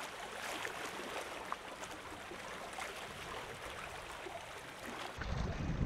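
Seawater sloshing and trickling: an even hiss with many small splashing ticks.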